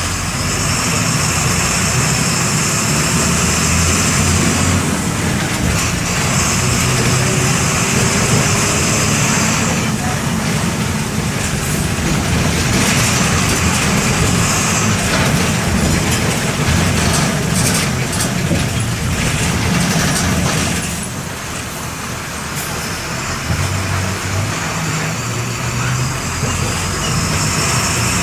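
MWM 6.12 TCE six-cylinder inline turbo-diesel of a Volksbus 17-230 EOD city bus, heard from on board while driving. A high whine rises and falls away several times as the engine pulls and eases off, and it is quieter for a couple of seconds about three-quarters of the way through.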